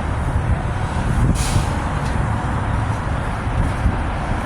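Steady low rumble with a brief hiss about a second and a half in.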